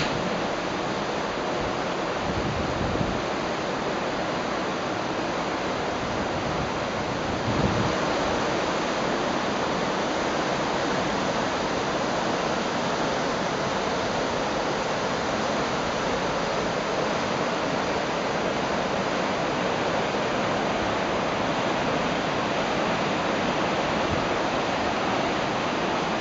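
Steady rushing of wind and churning water heard from the deck of a moving ship, a little louder from about seven and a half seconds in.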